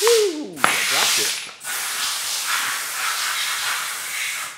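A loud, steady hiss that drops out briefly about half a second in and again around a second and a half, then cuts off abruptly at the end. A short pitched sound falling in pitch comes at the very start.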